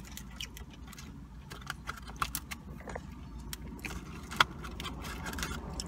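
Fast-food packaging crinkling and rustling as it is handled, with scattered clicks and crackles and one sharp tick about four and a half seconds in, over a steady low hum.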